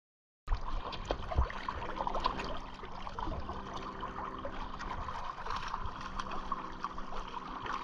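River current flowing and gurgling around a wading angler, with a few soft knocks, while a hooked American shad splashes at the surface on a Spey rod.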